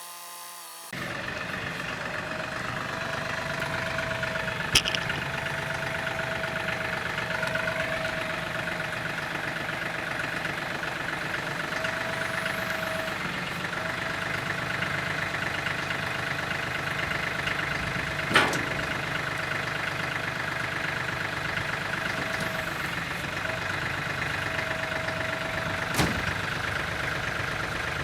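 Tractor engine running steadily, with a higher whine that comes and goes and three sharp knocks spread through.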